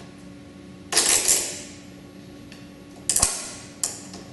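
Ratchet strap on a snowmobile ski rack being cranked tight over skis: sharp ratcheting clicks, a quick pair about a second in, then single clicks near the end.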